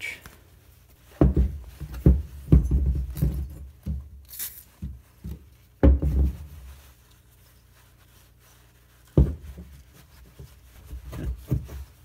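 Handling noise from wiping the cylinder of an 80cc two-stroke engine with a microfiber cloth: cloth rubbing, with several dull thumps and knocks as the cylinder is handled, and a short hiss about four seconds in.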